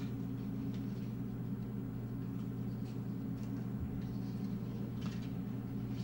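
Scissors cutting paper, a few faint snips and rustles of the sheet, over a steady low hum.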